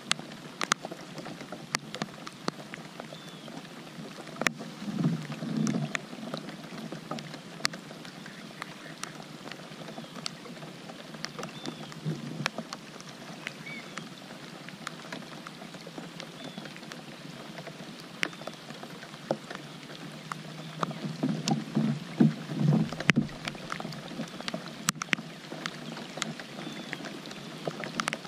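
Steady rain falling on lake water, a continuous hiss dotted with sharp ticks of drops striking close by. A low rush of sound rises about five seconds in and again around twenty-two seconds.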